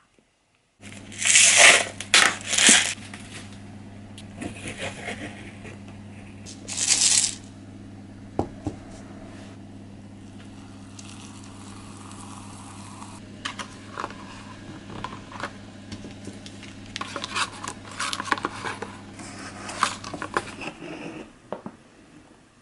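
Plastic food packaging being torn open and crinkled, with loud rips about a second in, again a second later and around seven seconds, then smaller crinkling later on. A steady low hum runs underneath and stops near the end.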